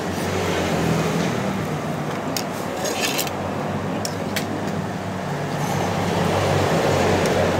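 Road traffic passing, a vehicle engine running steadily beneath a haze of road noise, with a few light clicks of a spoon against a soup bowl.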